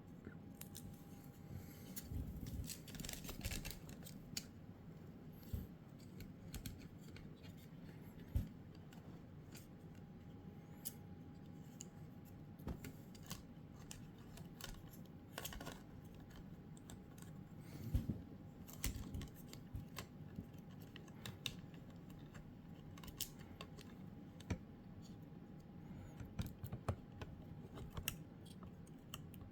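Faint, irregular clicks and light knocks of small hard parts being handled and worked on by hand, a few of them sharper, over a faint steady hum.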